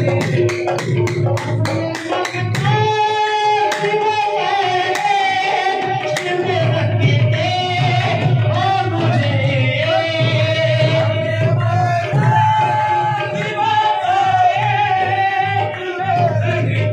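Qawwali singing with music: a long, wavering sung melody over steady accompaniment. Quick, sharp rhythmic strokes, about four a second, run through the first couple of seconds and then stop.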